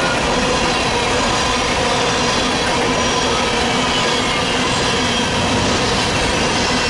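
Freight train cars of a grain train rolling steadily past, a continuous rumble of steel wheels on rail with faint squealing tones from the wheels.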